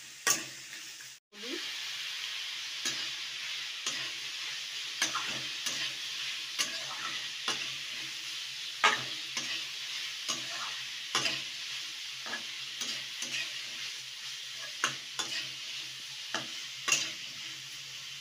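Chopped vegetables sizzling in hot oil in a metal kadai while a spatula stirs them. The spatula knocks and scrapes against the pan every second or so. The sound breaks off briefly about a second in.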